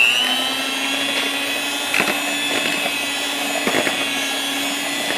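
Electric hand mixer running steadily, its beaters whipping egg whites with sugar, with a steady motor whine. Two brief knocks come about two seconds in and again near four seconds.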